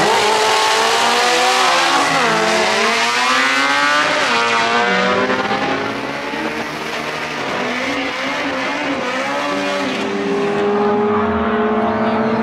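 Two drag-race cars accelerating hard off the start line and down the strip. The engine pitch climbs and drops back several times as they shift up through the gears, and a steadier engine note takes over near the end.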